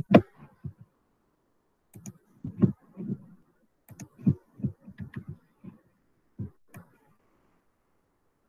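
Irregular clicking and tapping of a computer mouse and keyboard close to the microphone, in short groups with pauses between.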